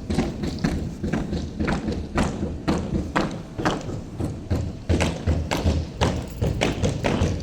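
A steady run of dull thuds, about two a second, over a low hum.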